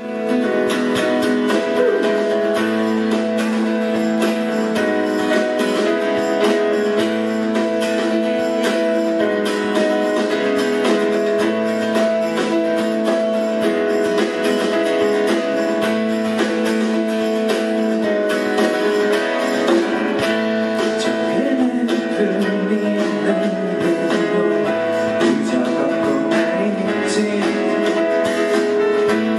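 Steel-string acoustic guitar strummed steadily, chords ringing on in an even rhythm, played solo without singing.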